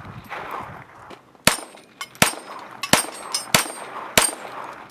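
Five gunshots about two-thirds of a second apart, the bullets striking swinging steel plate targets.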